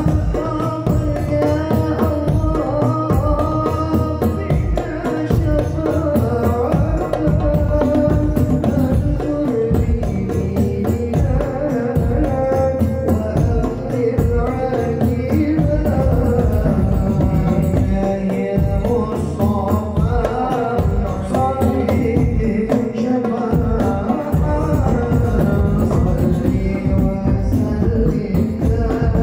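Hadroh ensemble playing a sholawat: rebana frame drums and a large bass drum beat a steady rhythm under group singing.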